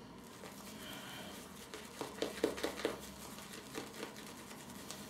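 Shaving brush whisking a thick, creamy shaving-soap lather around a lathering bowl, a soft wet crackling and squishing, with quicker strokes about two to three seconds in.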